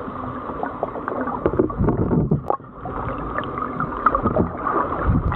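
Muffled sloshing and gurgling of water heard with the microphone underwater, right beside a boat's hull, with scattered knocks and one sharp click about halfway through. The water is stirred up by a hooked yellowtail being hauled up to the surface alongside the hull.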